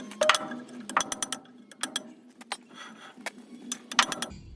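Irregular series of sharp metallic clinks and clanks from steel tools and heavy truck drum-brake parts knocking together, a few ringing briefly.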